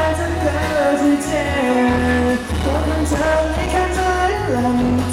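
Live pop ballad from a concert sound system: a band playing with sung melody over a steady bass line.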